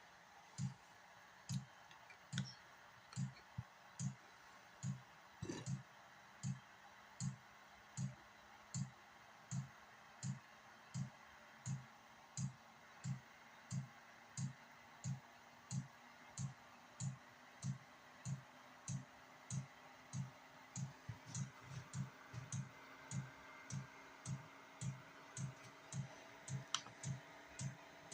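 Diesel air heater starting up: its fuel dosing pump ticks steadily a little under once a second, quickening in the last third, over the hum of the combustion fan, which begins to rise in pitch about twenty seconds in as the heater starts to fire.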